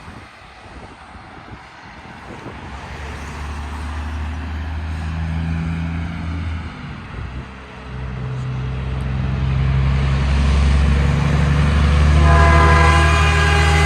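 An approaching train locomotive whose low engine rumble grows steadily louder. About twelve seconds in its horn starts sounding and is held.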